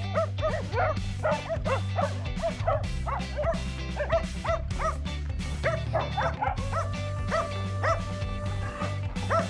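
Dogs barking and yipping in quick succession over background music; the barking stops about two-thirds of the way through while the music carries on.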